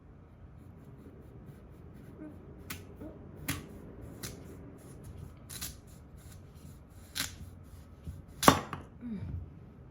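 About six sharp kitchen knocks, like a knife or utensil striking a cutting board, irregularly spaced, the loudest near the end.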